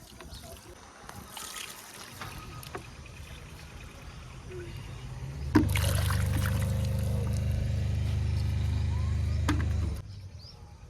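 A heavy diesel engine is heard at a low hum at first. After a sharp click it rises to a loud, steady high-rev drone for about four seconds under load, then drops back near the end.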